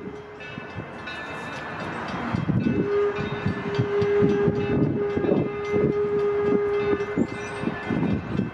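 A steam locomotive whistle blowing: a short end of one blast right at the start, then a long, steady blast of about five seconds from about three seconds in. Under the long blast runs a regular beat of a few thumps a second, which fits the locomotive's exhaust chuffing.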